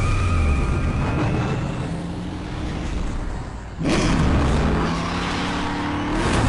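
Truck engine revving hard as it races. The note fades a little, then jumps in loudness about four seconds in and climbs as it accelerates.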